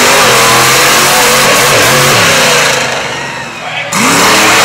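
Monster truck engine revving loudly, its pitch rising and falling. It eases off about three seconds in, then comes back in suddenly near the end.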